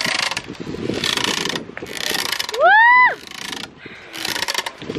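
A rope swing creaking as it swings back and forth under a rider, with a noisy rush about once a second. About halfway through comes one loud squeak that rises and then falls in pitch.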